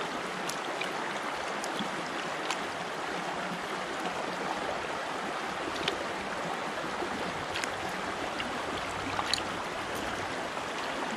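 A small, shallow brook running over rocks: a steady rush of water, with a few faint ticks scattered through it.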